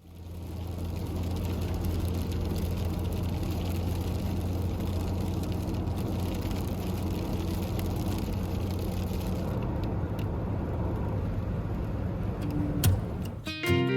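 Volkswagen Vanagon driving: a steady low drone of engine and road noise, with a couple of sharp knocks near the end.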